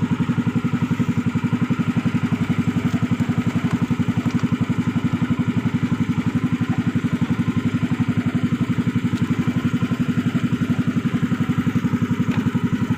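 Small boat engine running steadily at idle, a fast, even chugging with no change in speed.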